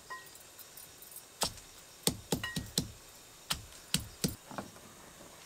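Pestle knocking on a stone grinding slab while crushing green chillies: about ten sharp knocks in uneven groups, starting about a second and a half in, with a faint clink or two.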